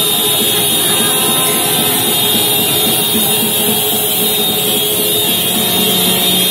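Dense street din of a crowd of motorbikes: many horns honking and blaring over each other, with engines revving, in an unbroken loud wall of sound.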